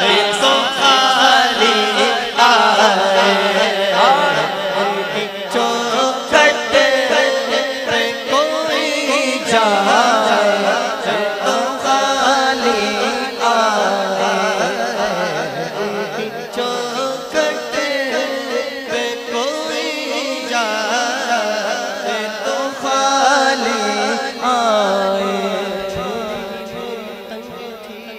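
A man sings a naat in long, ornamented, wordless-sounding runs over a steady low drone. The sound fades out near the end.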